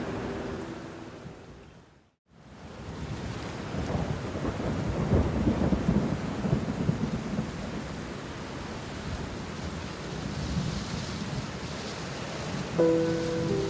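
Rain with a rolling rumble of thunder that swells a few seconds in and then settles into steady rain. Before it, soft sustained music tones fade out and briefly drop to silence; they come back near the end.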